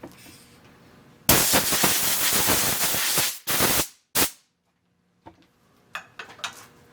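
Compressed-air blow gun blasting chips off a machined part: one loud rush of air about two seconds long, then two short blasts. A few light metallic clicks follow near the end.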